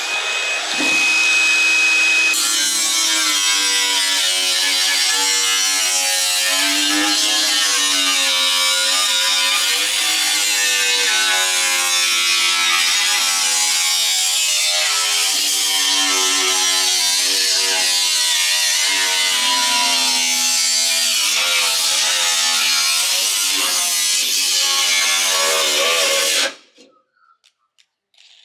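Electric power tool running under load on steel exhaust tubing, its pitch wavering as it works, stopping abruptly near the end.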